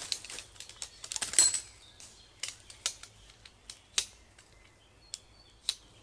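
Irregular sharp clicks and taps, bunched from about one to one and a half seconds in, where the loudest has a brief ringing tone, then spaced out. Faint bird calls can be heard in the background.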